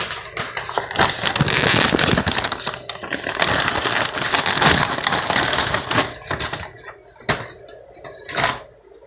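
Plastic meat packaging crinkling as it is handled: a dense, crackling rustle for several seconds, then a few separate short rustles near the end.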